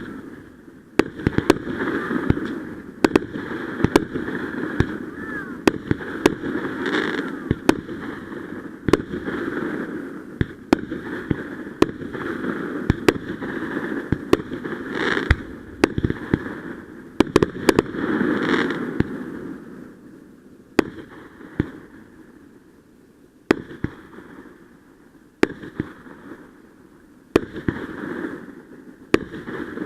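Fireworks show: many sharp bangs at irregular intervals, often several a second, over a noisy wash that eases after about twenty seconds.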